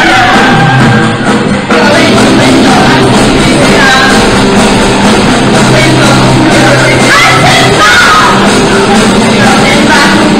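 Live rock and roll band playing loud: two women singing over electric guitars and drums, with a brief drop in the sound about a second in.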